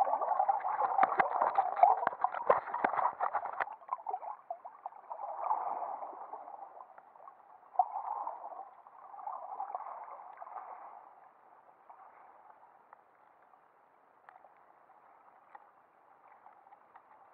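Muffled underwater noise picked up by a camera in a waterproof housing on the seabed. Dense sharp clicks and scraping for the first few seconds, then a few separate washes of water noise that fade away toward the end.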